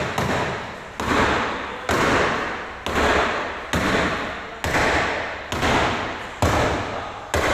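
Steady, regular hammer blows on damaged car body sheet metal, about one strike a second, each leaving a fading ring.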